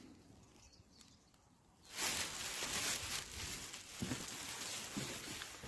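Footsteps on a gravel-and-dirt path under a steady rustling hiss, starting about two seconds in after a near-silent pause.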